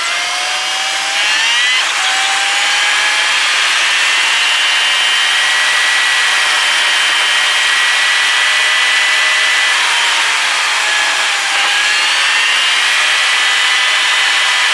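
Vehicle engine and drivetrain whine heard from inside the cab while driving, over steady road and wind noise. The whine climbs with speed and drops sharply about two seconds in as a gear changes, then holds steady. It sags and jumps back up about three-quarters of the way through.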